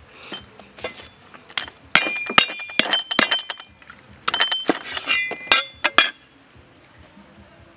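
Metal cleaver chopping on a wooden chopping block: two quick runs of sharp chops, the blade ringing briefly after each strike, stopping about six seconds in.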